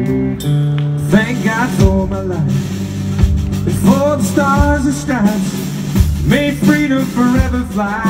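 Live country band playing: guitars, bass and a drum kit, with a melody line in short phrases over the top. The drums and the melody come in about a second in over the held guitar chords.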